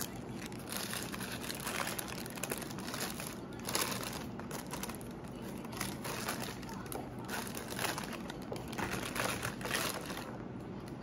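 Paper wrapper of a McDonald's hamburger crinkling as it is picked up and peeled open, in irregular rustles and crackles.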